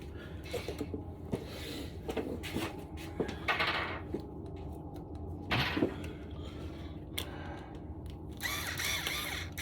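Scattered clicks, scrapes and knocks of hand tools on engine parts as a Phillips screw is worked loose with a screwdriver, with two louder scraping bursts in the middle, over a steady low hum.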